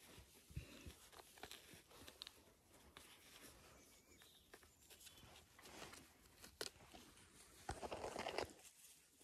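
Faint rustling and small clicks of puppies wriggling and play-biting on a lap, with a louder scuffle close to the microphone near the end.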